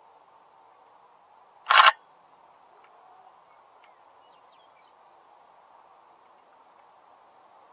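A single brief, loud clack about two seconds in, over a faint steady background hiss.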